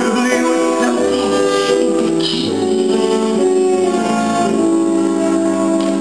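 A song from a live stage musical: sung melody with long held notes over instrumental accompaniment, recorded from the audience with poor sound quality.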